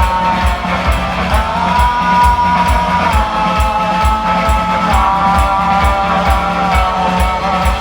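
Pop-rock band playing live: a steady kick-drum beat and cymbal pattern under held chords that change about every two seconds, with no vocals.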